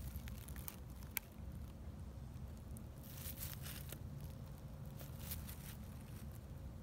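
Faint outdoor background: a low steady rumble, one sharp click about a second in, and soft rustles around three seconds in and again near five seconds.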